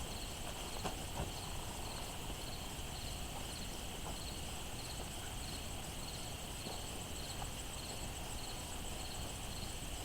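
Late-summer insect chorus: a steady high trilling with one insect chirping evenly about twice a second, like a cricket.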